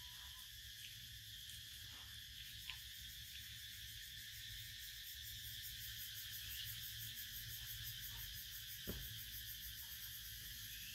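Faint, steady high-pitched insect chorus, with a few soft clicks.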